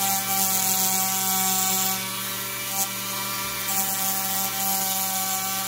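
Dremel rotary tool on a flex shaft running at low speed with a steady motor hum, its sanding drum grinding lightly into foam board in two spells of about two seconds each, the second starting a little past the middle.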